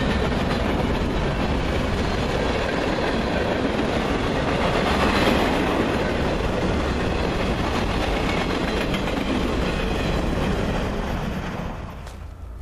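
Freight train's boxcars rolling past close by, a steady noise of steel wheels running on the rails. The sound drops away sharply near the end.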